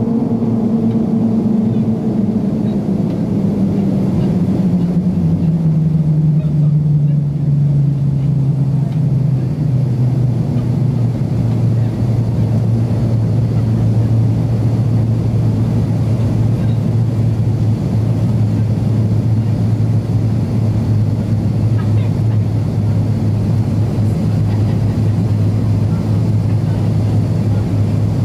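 Cabin noise of an Avro RJ100's Lycoming LF507 turbofan engines heard from a seat by the wing in descent: a steady rush with an engine hum that falls in pitch over the first ten seconds or so, then holds steady as the engines settle at lower power.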